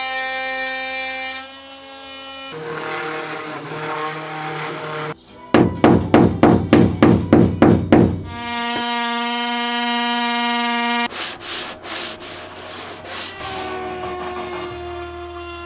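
A run of cordless power tools working wood and plywood: a small Makita router whining steadily as it shapes a plywood edge, and near the end an oscillating multi-tool buzzing at a lower pitch as it cuts into a wooden door frame. In the middle comes the loudest part, a burst of rapid strokes on wood, about four a second.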